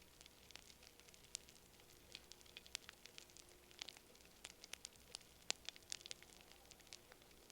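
Quiet campfire crackling: irregular sharp pops and snaps, several a second, over a soft steady hiss.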